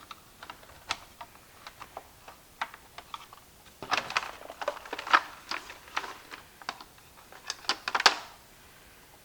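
A hand tool clicking and scraping against the hard plastic inside an old Roomba as it probes for a small object wedged there: irregular light clicks, busiest about four to five seconds in and again near eight seconds.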